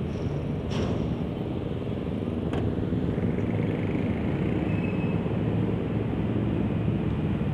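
Steady low rumble of busy road traffic, cars and motorcycles running in a slow-moving queue, with two sharp clicks in the first few seconds.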